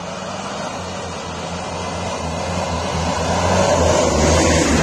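Jeep engine running as the vehicle drives toward the microphone, getting steadily louder as it comes close.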